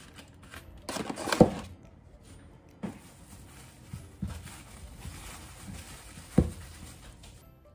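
A box of kitchen foil is knocked down onto a kitchen worktop about a second and a half in. Then a thin plastic bag rustles as a peeled onion is handled on the worktop, with a few light knocks, one of them sharper near the end.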